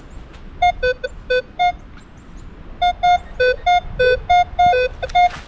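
Minelab Equinox 800 metal detector giving its target tones as the coil is swept back over a dug hole: short electronic beeps that switch between a higher and a lower pitch, a short run of them and then a longer run from about three seconds in. The signal shows the target is still in the hole.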